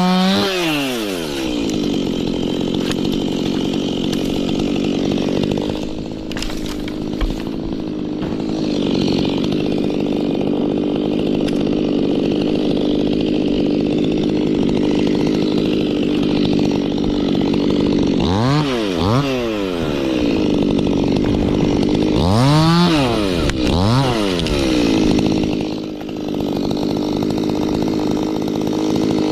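Two-stroke Stihl chainsaw cutting, its engine held at a steady, pulled-down pitch under load in the wood. Twice, around the middle and again a few seconds later, it revs up and falls back.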